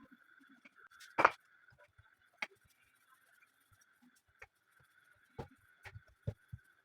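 Kitchen clatter: a few separate sharp knocks and clicks of utensils, the loudest about a second in and several more in the last couple of seconds, over a faint steady high-pitched hum.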